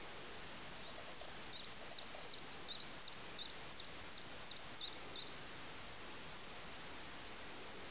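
A small bird calling: a run of about a dozen short, high notes, each dropping in pitch, lasting about four seconds, over a steady outdoor hiss.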